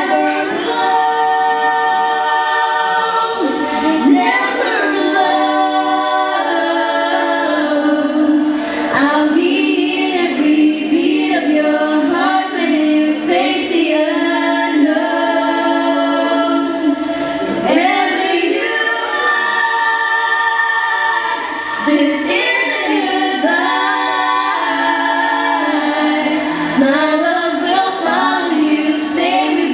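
A small group of women singing together into handheld microphones, several voices at once, with long held notes.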